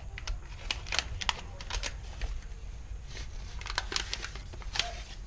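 Paper envelope being handled and rustled, a run of irregular sharp clicks and crackles.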